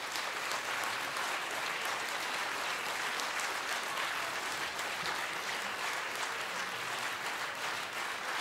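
Audience applauding steadily: many hands clapping at once in a hall.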